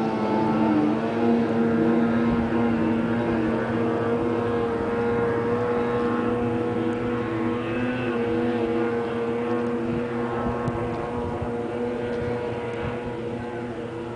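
Snowmobile engine running steadily as the sled skips across open water, a held drone that slowly fades as the machine gets farther off.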